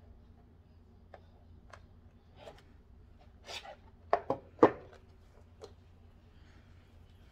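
A plastic chopping-mat cylinder and a strip of rhinestone trim being handled on a table: scattered light clicks and a brief rustle, then three sharp plastic knocks in quick succession about four seconds in.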